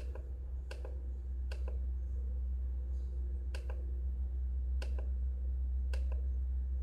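Physical menu buttons on a Concórdia CZ236F monitor being pressed, about six sharp clicks at irregular intervals as the on-screen menu is stepped through, over a steady low hum.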